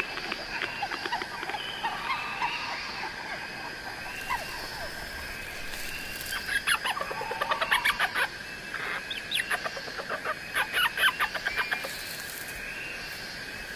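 Birds calling in many short chirps over a steady high hum, with two louder bursts of rapid clucking calls, one about halfway through and one near the end.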